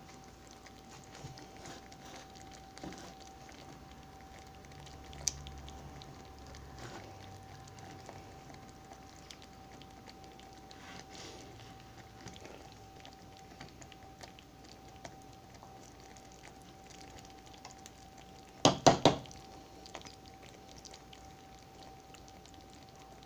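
Chicken in a paprika cream-of-chicken-soup sauce simmering in a skillet, with faint bubbling and crackling under a steady high hum. Three quick, loud knocks come about three-quarters of the way through.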